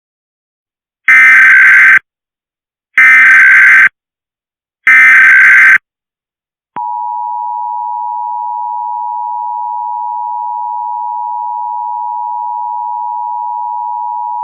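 Emergency Alert System signal: three short bursts of SAME header data, each just under a second and about two seconds apart, followed by the EAS two-tone attention signal, a steady dual tone held for about eight seconds.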